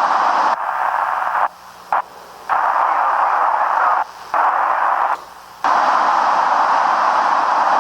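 Ham radio receiver tuned to the ISS amateur repeater, giving loud static hiss with no voice. The hiss cuts out four times for a fraction of a second each, then runs steadily through the second half.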